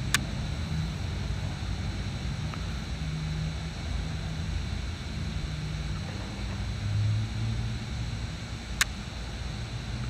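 Wind rumbling on the microphone, with two short sharp clicks, one right at the start and one near the end.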